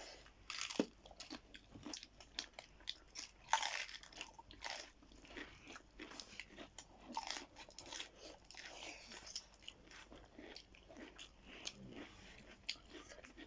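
Close-up chewing and biting of chewy, dried pickled meat and fish, with many short, irregular crunches and moist mouth sounds.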